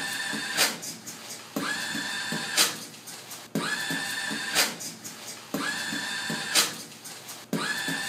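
Automatic paper towel dispenser's motor whirring out paper in bursts of about a second, switching on and off sharply. Between the bursts come beatboxed mouth percussion sounds with one sharp hit, all repeating as a beat about every two seconds.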